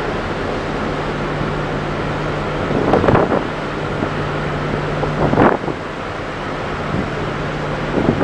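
Wind buffeting the microphone aboard a ship under way, over a steady low drone from the ship. Two stronger gusts rush in, about three seconds in and about five and a half seconds in.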